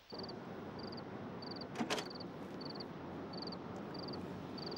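Cricket chirping steadily, a short high trill repeated about one and a half times a second, over a steady hiss of outdoor background. One sharp knock about two seconds in.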